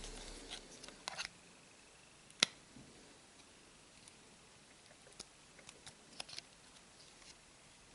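Faint, scattered small clicks and taps of a plastic card and small phone parts being handled during a phone teardown, the sharpest click about two and a half seconds in.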